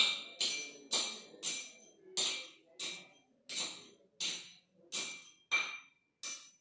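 Steel tamping rod striking stone chips in a small metal cylindrical measure, a steady run of about a dozen strokes at roughly two a second, each a sharp clink with a brief metallic ring. This is the standard 25-strokes-per-layer tamping of aggregate into the measure for an aggregate impact value test.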